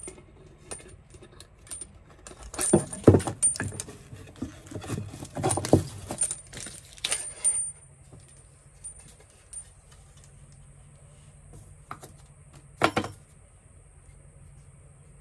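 Stainless braided tap hoses and their metal end fittings clinking and rattling as they are handled and fed through a drilled hole in a piece of timber, busiest in the first half, with one sharp knock near the end.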